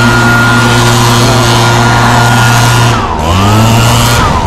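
Handheld leaf blower running close by at a high, even pitch; about three seconds in it slows and then speeds back up.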